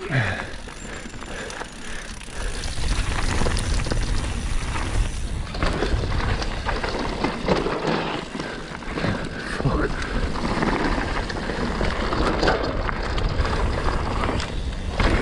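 Mountain bike riding down a dirt trail: tyres on the ground and the bike rattling over bumps, with wind buffeting the camera microphone. The low rumble gets heavier about two seconds in as the bike picks up speed.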